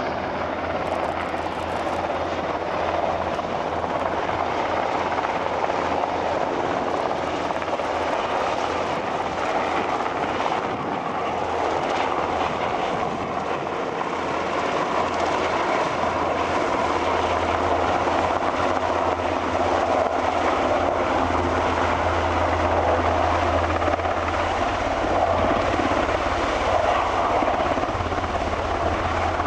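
Sikorsky S-92's main and tail rotors and twin turboshaft engines running as it hovers low and moves in to set down, a steady beating rotor sound with turbine noise. The rotor beat grows louder about halfway through as the helicopter comes closer.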